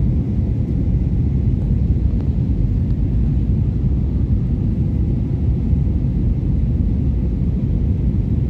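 Airliner cabin noise: a steady, loud low rumble of the engines and airflow heard from inside the passenger cabin during the landing approach.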